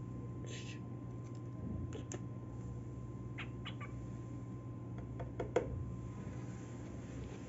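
Cockatiel giving a few short chirps in little clusters about every second or two, over a steady low hum.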